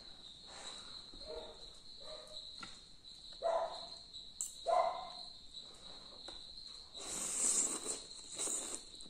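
Eating sounds from a bowl of thukpa noodles: soft mouth sounds about three and a half and five seconds in, then noodles slurped with a hissing suck about seven seconds in. Throughout, a steady high-pitched insect-like trill sounds in the background.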